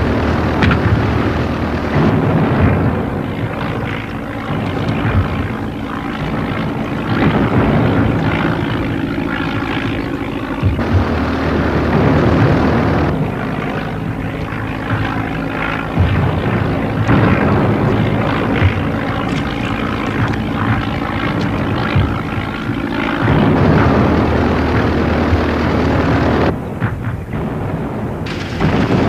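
Propeller-driven biplane engine running in flight, a continuous drone whose tone and level change abruptly several times.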